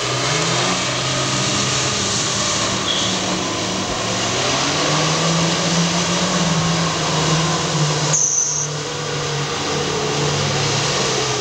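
Lada Niva's engine running hard under load, its pitch rising and holding as it drives through shallow water, over a steady rush of noise. The sound briefly drops out just after the middle.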